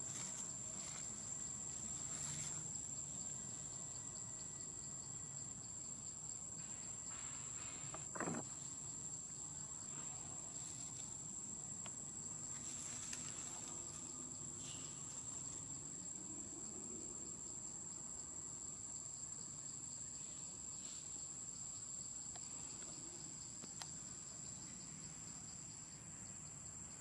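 Steady high-pitched insect drone, one unbroken tone, over faint outdoor background hiss. About eight seconds in, a brief sound sweeps quickly down in pitch.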